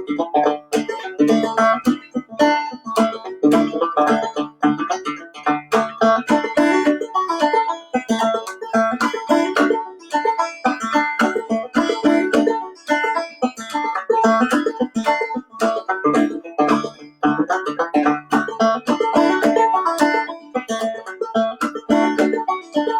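Clawhammer banjo playing a tune: a steady, quick run of plucked notes.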